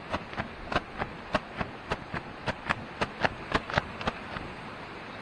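A quick run of sharp knocks or taps, about three a second, that stops a little over four seconds in, over the steady rush of creek water.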